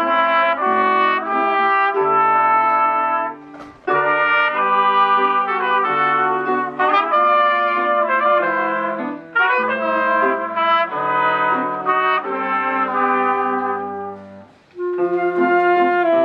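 A children's ensemble of trumpets, flute and clarinet playing a Disney medley together, the trumpets leading, with two brief pauses between phrases.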